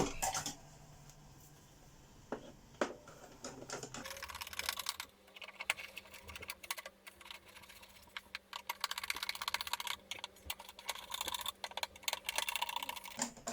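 Screws being driven into the nozzle plate of a 1988 Electrolux 612 upright vacuum with a screwdriver: a few separate clicks at first, then runs of rapid small clicking through the second half.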